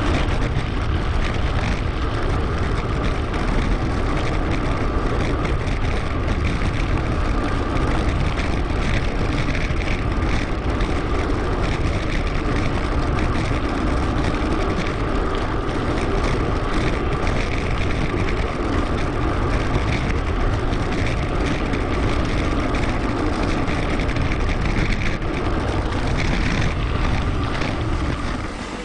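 Steady wind and riding noise on an action camera's microphone while cycling, with a heavy low rumble; it starts to fade just before the end.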